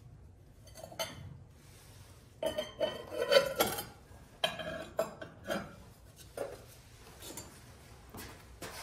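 Glaze-fired ceramic bowls and pots being picked up and set down, clinking and knocking against each other and hard surfaces in a string of short clatters. The busiest, loudest clatter comes about three seconds in.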